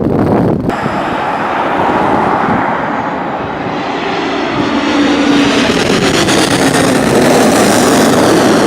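Jet airliner's engines passing close by: a loud, steady rush with a faint whine that bends in pitch, building toward the end.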